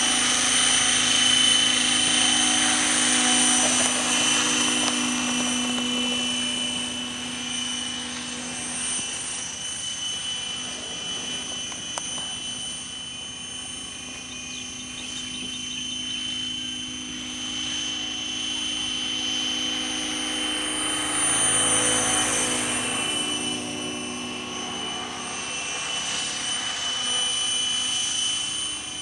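Electric-powered radio-controlled scale Hughes 500 helicopter with Raptor mechanics in flight: a steady high motor whine over rotor noise, swelling and fading as it flies nearer and farther, loudest in the first few seconds and again about 22 seconds in.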